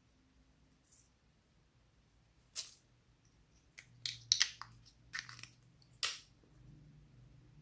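Slime being squeezed and mixed by hand: a few short, sticky crackles and pops, clustered between about two and a half and six seconds in.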